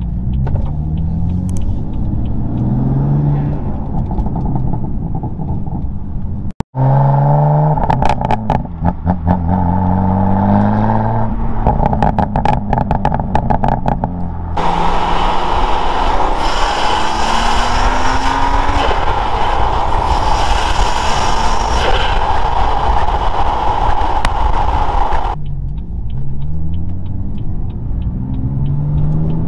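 BMW M4's S55 twin-turbo inline-six accelerating hard through several pulls, the revs rising each time, through resonated equal-length midpipes with the stock catted downpipes and competition muffler. In the middle stretch the exhaust is heard from a camera at the tailpipes, with heavy wind rush over it.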